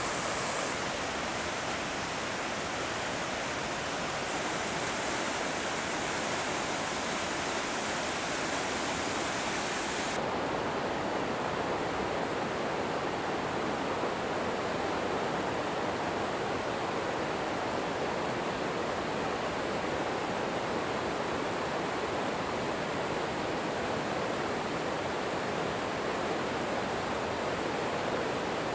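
The Hinterrhein rushing over rocks in the Via Mala gorge: a steady roar of white water that turns duller about ten seconds in.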